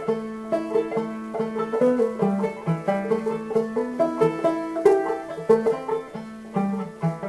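Banjo playing a tune in quick plucked notes.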